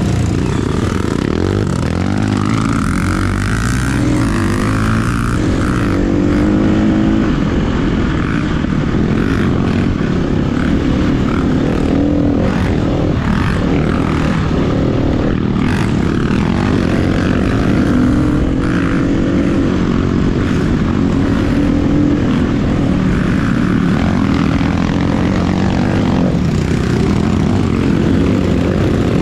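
KTM EXC-F 350's single-cylinder four-stroke engine, fitted with an FMF exhaust, running under way, its pitch rising and falling with the throttle.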